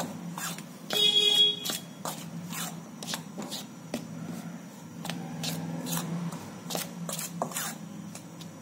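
A spoon scraping and stirring flour and melted ghee in a steel bowl, in quick repeated strokes. About a second in comes a brief high-pitched squeal of metal on the bowl, over a steady low hum.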